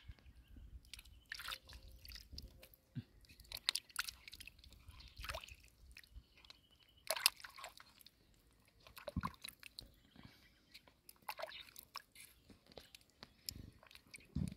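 Freshwater mussels being pulled by hand from a wet mud bank: scattered small wet squelches, drips and light clicks of shell, faint throughout.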